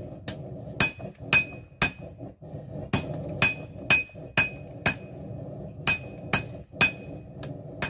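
Hand hammer striking a steel knife blank on an anvil while the stick tang is cleaned up: sharp blows at about two a second, each ringing briefly, in three short runs with brief pauses. A steady low hum runs underneath.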